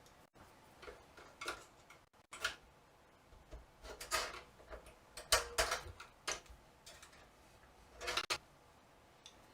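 Irregular light clicks and metallic taps as a bent sheet-metal shield is worked loose and refitted on a Macintosh IIci.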